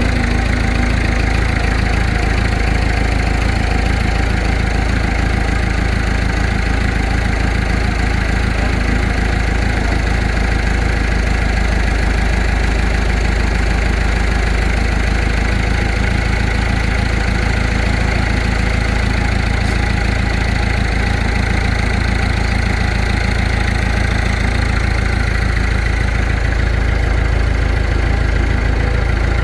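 Diesel engine of heavy equipment idling steadily, an even low rumble that holds unchanged.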